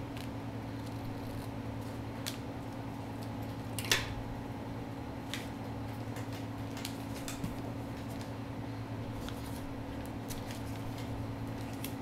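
Scissors cutting duct tape, with light handling clicks and rustles of tape and paper, and one louder stroke about four seconds in. A steady low hum runs underneath.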